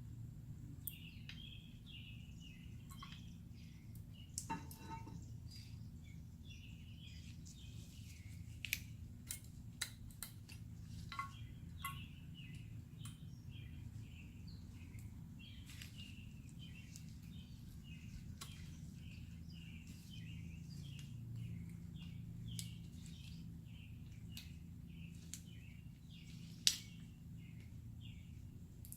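Birds chirping over and over against a steady low hum, with scattered light clicks and taps from brake parts being handled; the sharpest click comes near the end.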